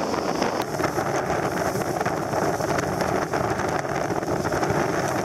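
Strong wind buffeting the microphone together with the steady rush of water along the hull of a sailing yacht driving hard through choppy, whitecapped sea.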